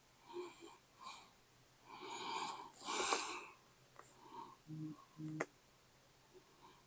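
A man breathing audibly through his nose, with a loud nasal exhale about three seconds in, among a few faint clicks of fingers tapping a phone screen and two short low buzzes near the end.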